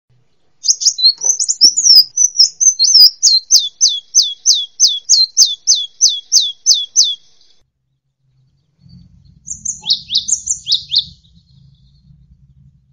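Songbird song. A varied twitter leads into a run of evenly repeated, high, downward-sweeping whistled notes, about three a second. After a break of about a second, a few more high chirps come over a faint low hum.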